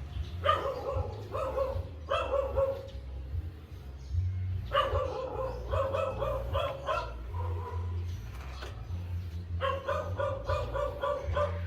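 A small dog barking in quick runs of short, high yips, three bouts in all, over a steady low hum.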